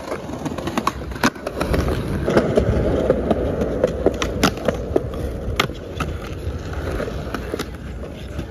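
Skateboard wheels rolling over stone paving slabs, a steady rumble broken by scattered sharp clacks.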